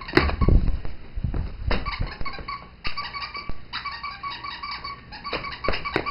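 A squeaky toy squeaked over and over in quick rapid runs with short breaks, alongside footsteps thumping on a hardwood floor, heaviest in the first second.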